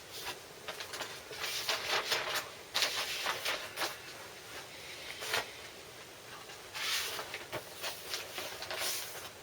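Vinyl LP being handled and slid against its sleeve: irregular bursts of rustling and scraping with a few light clicks.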